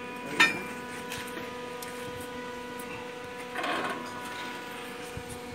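Steady machine hum with a sharp metallic clink of a fitting tool on steel pipework about half a second in, and a brief scrape a little past the middle.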